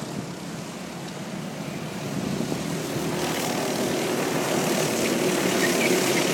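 Racing go-kart engines buzzing at speed, several karts at once, growing louder from about two seconds in as they come closer.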